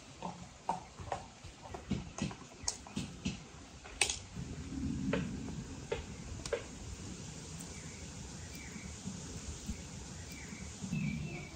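Ripe apricots being pulled apart by hand and the halves and stones dropped onto a wooden cutting board: a quick series of soft wet clicks and taps in the first few seconds, then quieter handling.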